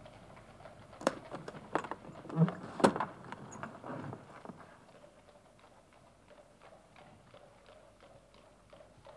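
A small hinged syringe case being handled: a run of sharp clicks and knocks with one dull thump, the loudest about three seconds in. After that a faint, even ticking, about two or three a second.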